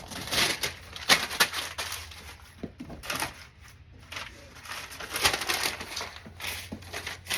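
Irregular rustling and crinkling of things being handled and packed up.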